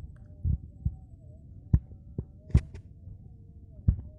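About six dull low thumps at uneven intervals, the loudest a sharper knock about two and a half seconds in, over a faint wavering hum.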